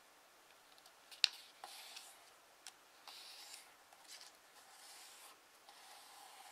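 Hands folding and creasing a sheet of origami paper. There is a sharp tap about a second in, then several soft rubbing swishes as the fingers run along the fold to flatten the crease.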